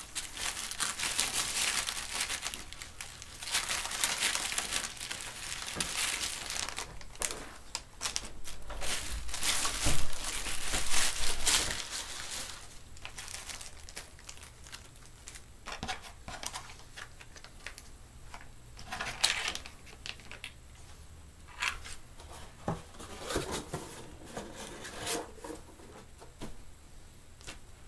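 Plastic packaging bags crinkling and rustling as small electronic parts are handled and unpacked. It is dense and loudest over the first dozen seconds, then comes in shorter, scattered bursts.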